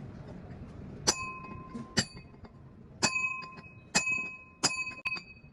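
Hammer striking a steel part about six times, roughly once a second, each blow ringing on with a bright metallic tone.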